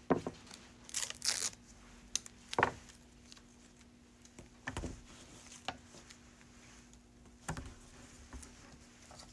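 Small pieces of adhesive tape being peeled and pressed onto wooden craft sticks: short rustling, tearing sounds early on, then a few light knocks as the sticks are handled against the table.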